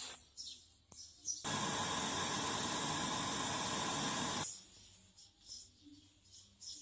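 Brazing torch flame hissing steadily while it heats a copper pipe joint at a refrigeration filter drier. The hiss starts abruptly about a second and a half in and stops about three seconds later.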